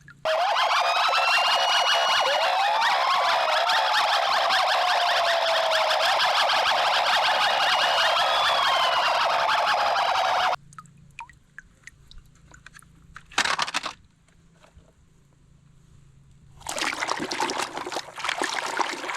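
Toy police car's electronic siren sounding for about ten seconds, several rising and falling wails overlapping over a hiss, then cutting off suddenly. A few seconds before the end, water starts running.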